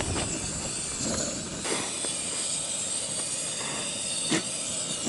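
Camping gas stove burner hissing steadily under a simmering pot. A light click comes near the end as the oven door catch is worked.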